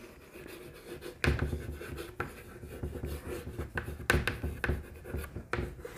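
Someone writing by hand: a pen scratching across a writing surface in a run of short, irregular strokes, starting about a second in.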